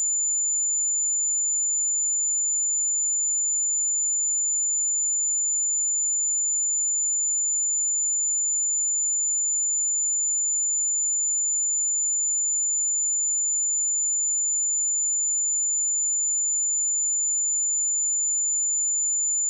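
A steady, high-pitched 7048 Hz sine-wave test tone: a single pure tone held at one constant pitch and level.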